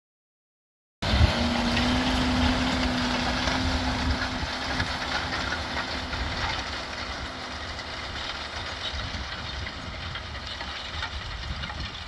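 After a second of silence, a John Deere 6215R tractor's six-cylinder diesel cuts in, working steadily under load as it pulls a plough, with a low hum that fades out partway through as the tractor moves away.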